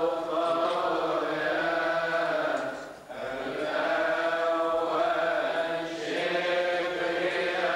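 Coptic Orthodox liturgical chant sung in unison by a group of voices, on long drawn-out notes, with a brief break about three seconds in.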